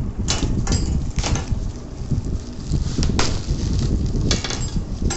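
Plastic packaging being handled and torn open, giving a string of short, sharp crinkles and crackles over a constant low handling rumble.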